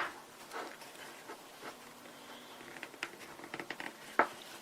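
Manual coffee grinder being worked into a tight canvas pouch: a sharp knock at the start, then faint scraping and cloth rustling with small clicks, and another knock near the end.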